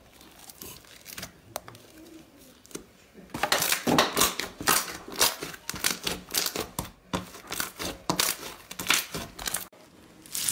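Crunchy slime being squeezed and pressed, giving a run of irregular crackles and pops. It is sparse at first, then denser and louder from about three seconds in until shortly before the end.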